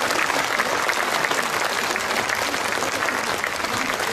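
A large audience applauding, a steady, dense clapping that does not let up.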